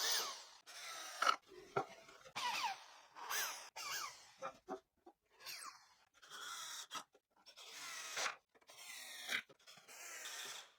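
Cordless drill running in many short bursts, its pitch rising and falling as the trigger is squeezed and eased, while pilot holes are drilled with a 2.5 mm bit and screws are driven into cedar.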